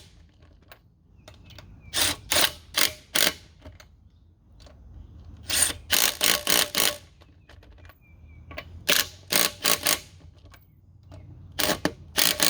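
DeWalt cordless impact wrench driving wheel lug nuts tight in short bursts: four clusters of a few quick blips each, a few seconds apart, one nut after another.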